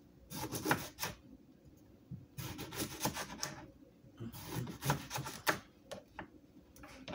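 Kitchen knife slicing through a cucumber on a cutting board: three rasping cuts of about a second each, then a few short clicks of the blade on the board near the end.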